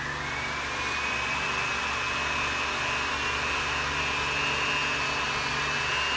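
High-current load test rig running, drawing about 360 amps through a 300-amp circuit breaker: a steady blower-like rush with a high whine that rises in pitch over about the first second and then holds steady.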